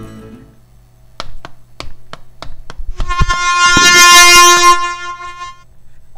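About six sharp knocks, three a second, then a truck air horn blaring for about two and a half seconds. Its loudest part, in the middle of the horn, is a loud hissing crash of noise as the truck hits the pedestrian. Cartoon sound effects.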